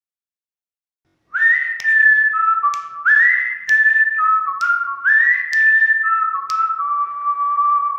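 Whistled intro tune starting about a second in: three short phrases, each opening with an upward slide, with sharp clicks roughly once a second, ending on a long held lower note.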